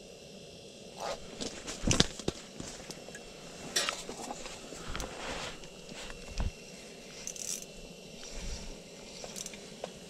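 Scattered clicks, scrapes and rustles of a fishing rod and spinning reel being handled close to the microphone, with clothing brushing, over a faint steady hiss.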